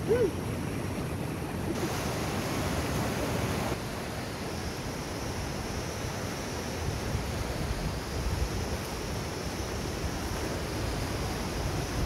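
Fast mountain stream rushing over rocks in shallow rapids: a steady wash of white water.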